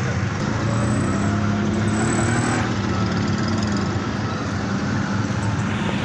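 Auto-rickshaw's small engine running steadily, heard from inside the open cabin, its revs rising and falling a little about two seconds in.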